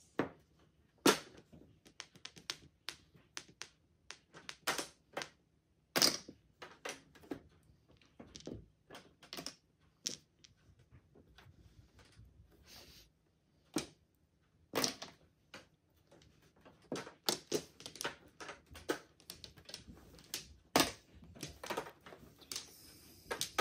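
Mahjong tiles clicking and clacking as they are set down and discarded on the table. The clicks are sharp and irregular, with a lull about halfway through.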